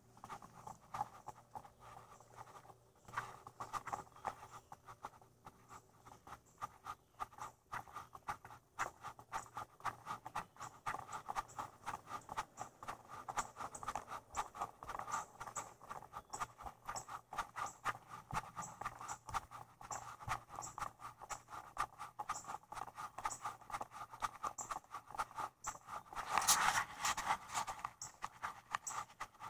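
Footsteps and handling noise of a person walking with a GoPro: a steady, muffled pattering of small clicks, with a louder rustling burst near the end.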